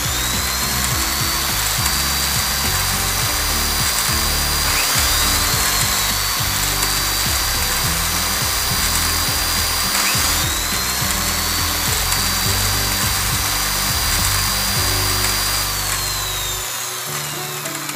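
Miniature toy mixer grinder with a small electric motor blending milk and nuts: three runs of about five seconds each, the high motor whine rising to speed and falling away between runs, stopping near the end.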